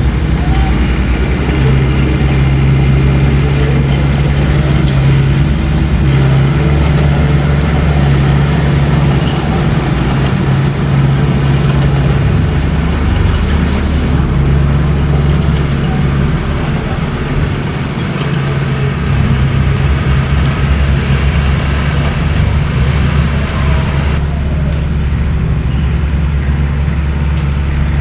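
Bulldozer's diesel engine running steadily under work, its low drone shifting slightly and dipping briefly about two thirds of the way in.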